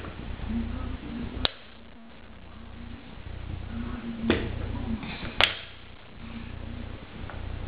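Rings of a stacking toy clacking against the peg and each other as they are threaded on: three sharp knocks, about a second and a half in, at about four seconds and again a second later.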